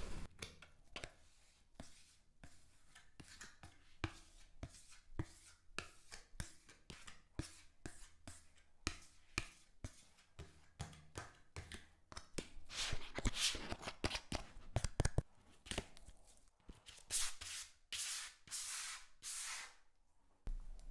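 A plastic scraper cuts into a packed block of pink kinetic sand, making a run of small crisp crunches and clicks. After about twelve seconds come several longer, grainier scraping strokes as layers of sand are shaved off.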